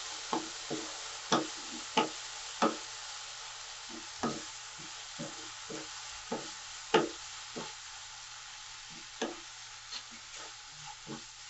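Onion-tomato masala with green peas sizzling in oil in a non-stick kadhai while a wooden spatula stirs it, with irregular taps and scrapes of the spatula against the pan. The steady sizzle is the spices and masala being fried (bhuna) before any water is added.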